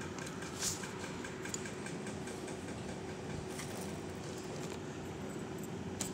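Steady mechanical room hum with a faint constant tone, and a few light clicks, the sharpest about two-thirds of a second in and another near the end.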